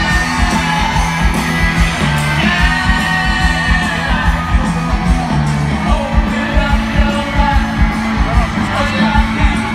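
Live rock band playing through an outdoor PA, heard from within the audience: a steady kick-drum beat and sustained bass under guitar and a singer's voice.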